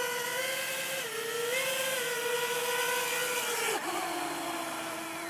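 JME quadcopter drone's motors and propellers whining steadily as it comes in to land, the pitch wavering as the throttle is adjusted. About four seconds in the whine and rush of air drop suddenly to a lower, quieter tone as it touches down and the motors idle.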